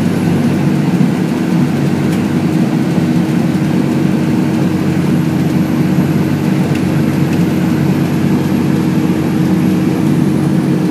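Fire engine driving at highway speed, heard from inside the cab: loud, steady engine drone and road noise with a constant low hum.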